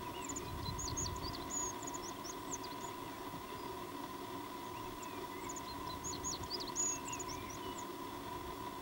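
A small songbird singing two quick bursts of high chirping notes, one at the start and one about two-thirds of the way through, over a faint steady hum.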